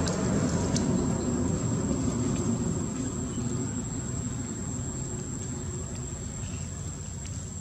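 Outdoor ambience: a steady, high-pitched insect drone over a low rumble that slowly fades, with a few faint ticks.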